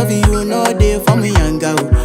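Background music with a steady, heavy drum beat under melodic instrument lines.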